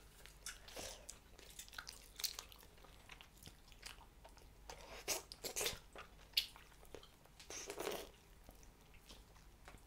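A mouth chewing Hubba Bubba bubble gum: quiet, irregular wet smacks and clicks, with one sharper click about six and a half seconds in.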